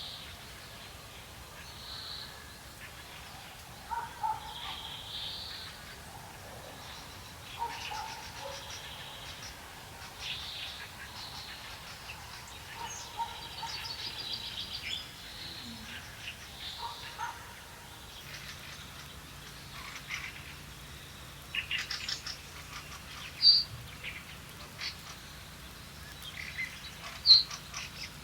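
Several wild birds calling and singing: scattered short whistled chirps and rapid trills, with a few sharper, louder notes near the end. A faint steady low hum is also present in the later part.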